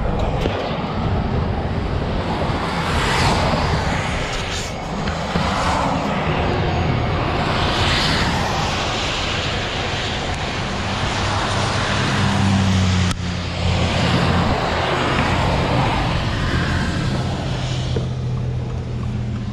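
Freeway traffic rushing past on wet pavement, swelling and easing as vehicles go by, with a vehicle engine running low underneath. A sharp click about two-thirds of the way through.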